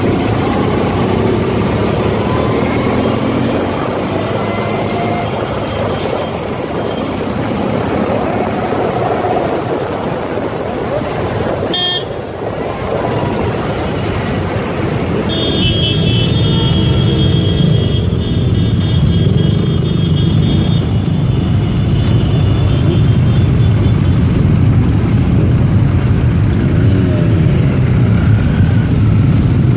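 Many motorcycle engines running in a slow group ride, heard from aboard a Ural 750 flat-twin, the engine note rising and falling with the throttle. A sharp click about twelve seconds in, and a high steady tone lasting several seconds a little past the middle.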